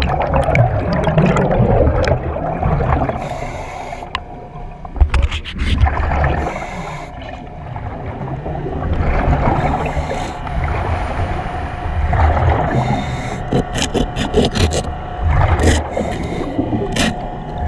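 Diver breathing in a Kirby Morgan helmet underwater: exhaled air bubbles out with a low rumble every three to four seconds. There are sharp clicks and knocks near the end.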